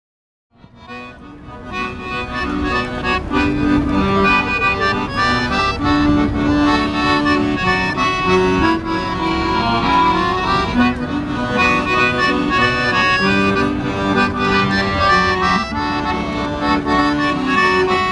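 Accordion music that fades in from silence over the first two seconds, then plays a melody over held chords.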